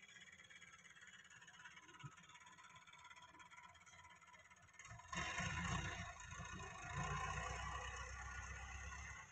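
Farm tractor working a disc harrow over loose soil, its engine faint at first. About halfway through a much louder, rough noise with a deep low end starts suddenly, and it cuts off abruptly at the end.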